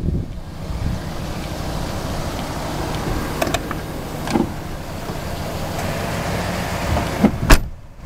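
GMC 3500 HD dump truck's engine idling steadily, with a few light clicks and one sharp knock near the end.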